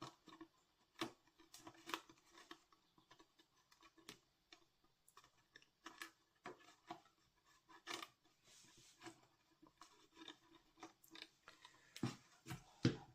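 Faint, irregular clicks, taps and rustles of folded cardstock being handled and pressed together as the glued paper model is held in place.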